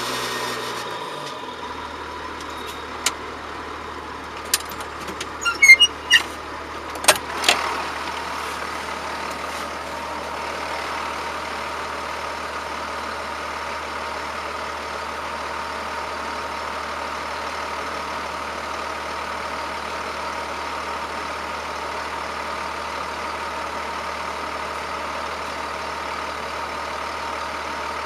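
John Deere 7710 tractor's diesel engine running steadily under ploughing work. A handful of sharp knocks and clicks sound between about three and eight seconds in, the loudest around six seconds in.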